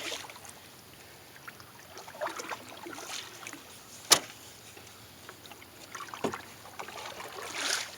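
Paddle strokes through calm water from a small dinghy, a soft splash and swish every few seconds, with one sharp knock about four seconds in.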